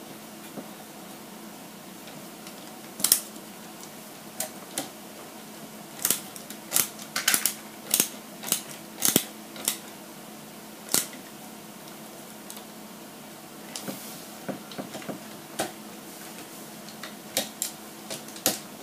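Sharp, irregular clicks and taps of small hand tools and screws or parts being handled while assembling an RC model truck's suspension, over a faint steady hum. The clicks come singly about three seconds in, then in a busy run between about six and eleven seconds, and again a few near the end.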